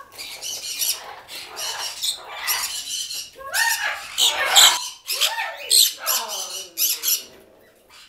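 Parrots squawking and chattering in a rapid string of harsh, raspy calls, mixed with a few sliding, speech-like calls, tailing off near the end.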